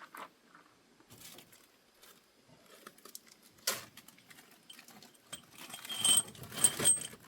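Small metal parts being handled: faint rustling, a sharp click about halfway, then a run of metallic jingling and clinking near the end.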